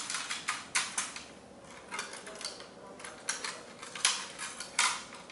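Metal poles and fittings of a folding camp kitchen table clinking and knocking against each other and the case as they are packed away: a scatter of light clicks and clacks, sharpest about a second in and again around four to five seconds in.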